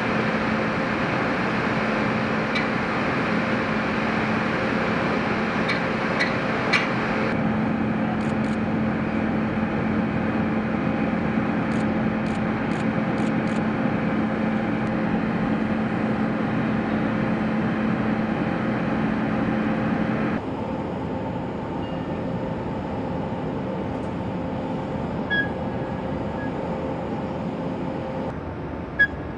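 Steady machinery hum with a low drone and a few faint clicks, dropping abruptly to a quieter, duller hum about twenty seconds in.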